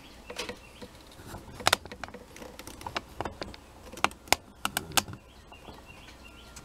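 Irregular light clicks and taps of handling noise, some close together and some a second or more apart, over a faint low hum.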